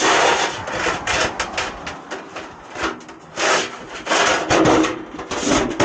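Rough scraping and rubbing on a shingled roof, in about six uneven strokes.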